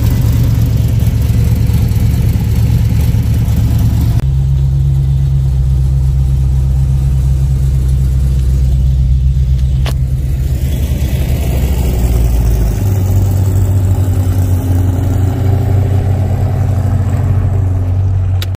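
Cammed V8 engine of a 1972 Dodge Challenger running loud, a steady heavy rumble. Its sound changes abruptly about four seconds in, and the pitch drops around thirteen seconds in as the car is driven.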